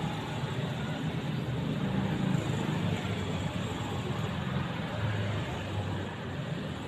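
Road traffic: motor vehicles running and passing, a steady rumble of engines that swells about two seconds in and again near five seconds.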